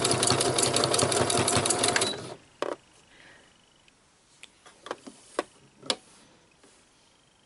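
Domestic sewing machine running fast for free-motion embroidery, an even rapid chatter of needle strokes that stops abruptly about two seconds in. A few faint short clicks follow.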